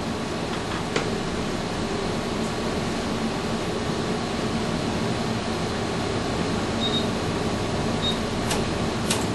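Steady whir of fan noise with a low hum, as from the cooling fans of test equipment, with a faint click about a second in, two faint short high beeps, and a few faint clicks near the end.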